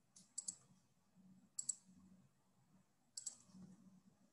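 Faint computer mouse clicks in three quick groups of two or three, about a second and a half apart.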